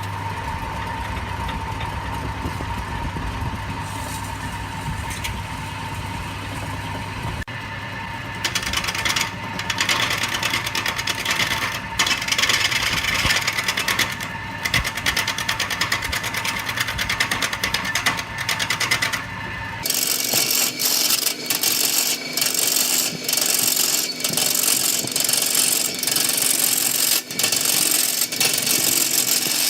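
Wood lathe running with a steady motor hum and whine, and a turning tool scraping into the spinning wood from about eight seconds in. About twenty seconds in the sound changes abruptly to a harsher, hissing cut with rapid ticks.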